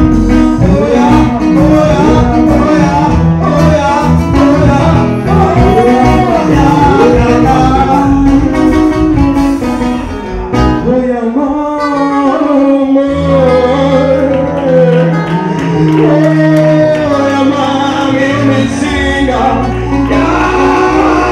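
A song with a singing voice over guitar and bass. The low bass drops out about ten seconds in and returns a couple of seconds later.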